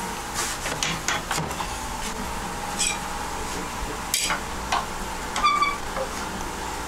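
Wood lathe running with a steady whir while its tool rest is moved and locked: scattered metal clicks and clinks, with two short ringing squeaks, one about three seconds in and one about five and a half seconds in.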